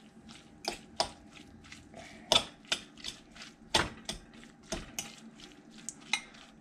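Two metal forks clinking and scraping against a ceramic bowl as they shred cooked meat, in irregular sharp clinks about two a second.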